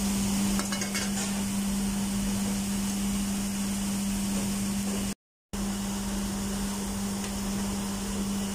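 Oil sizzling and bubbling in a commercial deep fryer as breaded chicken cordon bleu fries, over a steady low hum. The sound breaks off for a moment about five seconds in.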